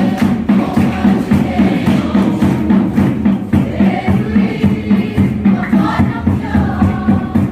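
A congregation singing together loudly over a steady, fast beat.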